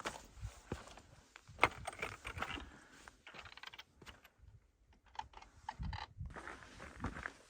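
A hiker's footsteps on a rough mountain trail: uneven crunches and sharp clicks of boots on rock and grit, with a short lull about halfway through.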